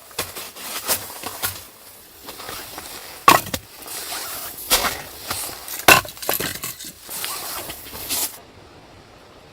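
Irregular sharp knocks and crunching impacts, the loudest three near the middle. They stop suddenly about eight seconds in, leaving a faint steady hiss.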